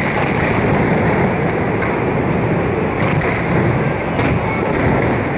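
Fireworks display: a few faint bangs and crackles from bursting shells, about four, over a steady loud rushing roar.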